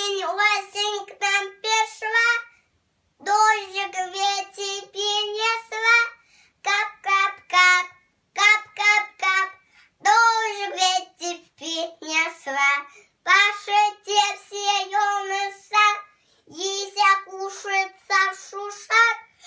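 A young child singing a Russian children's verse about autumn in a high voice, in short phrases with brief pauses between them.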